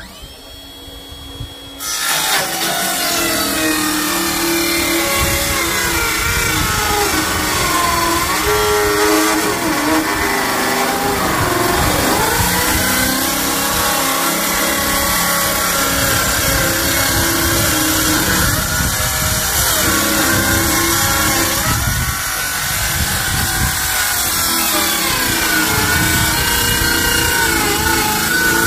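Handheld circular saw ripping along a wooden plank, starting up about two seconds in and cutting continuously; the motor's pitch sags and recovers several times as the blade bites into the wood.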